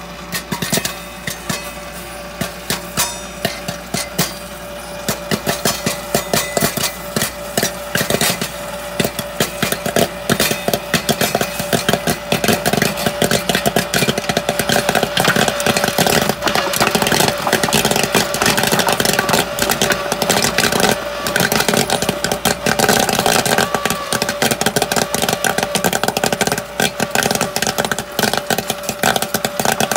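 Popcorn kernels popping in the heated kettle of a Nostalgia CCP510 popcorn maker, over the machine's steady hum. Scattered pops at first build within a few seconds into a dense, rapid crackle of pops: the batch at full pop.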